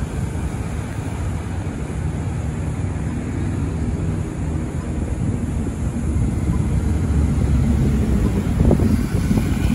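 Motorcycle engines running along a city street with traffic, under wind buffeting the microphone. The rumble grows louder near the end as a motorcycle passes close.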